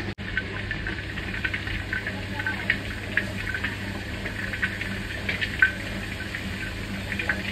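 Electric motor of a mechanical stirrer running with a steady hum as its paddle churns the lumpy sweet mixture in an iron pan, with irregular clicks and crackles from the lumps being turned over.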